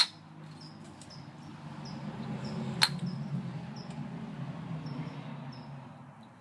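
Wooden kendama clacking sharply twice, once at the start and again about three seconds in. A low hum swells and fades between the clacks, with steady cricket chirping about twice a second.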